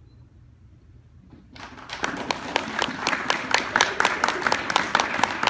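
Audience applause, starting about a second and a half in and quickly getting louder, with individual claps standing out.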